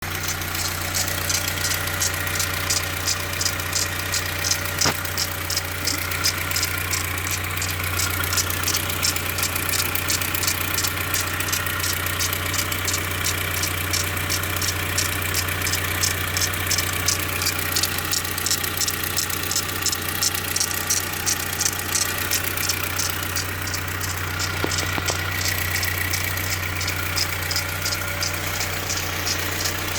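Audi A4 B5's 1.6-litre AHL four-cylinder petrol engine idling, with a steady, fast, regular ticking over its hum. It is the extraneous noise from the timing-belt area that the owner is trying to track down.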